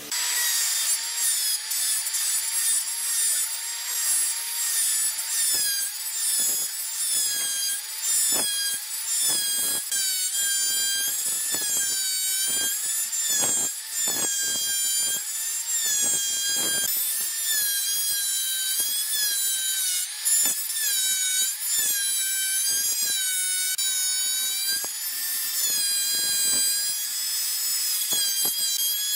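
Dong Cheng DMR05-12 plunge router cutting along the edge of a hardwood plank. Its high motor whine keeps dipping in pitch and recovering as the bit bites into the wood, over a gritty cutting noise.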